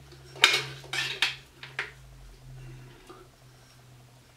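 Metal cutlery scraping and clinking against an enamel plate while cutting into a cooked egg, with three sharp clinks in the first two seconds and quieter after. A faint low hum runs underneath.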